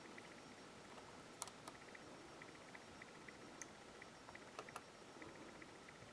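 Near silence with a few faint, sharp clicks: a small screwdriver seating in and turning the tiny screws of a brass N scale locomotive frame.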